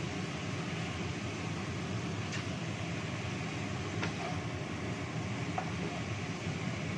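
Rice vermicelli being stir-fried in a nonstick wok with a wooden spatula, with a few light taps of the spatula against the pan over a steady low rumbling hum.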